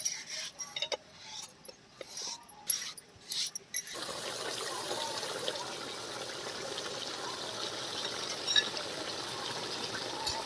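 Cooking on the fire: a few scattered clicks and knocks, then about four seconds in a steady watery hiss sets in and holds.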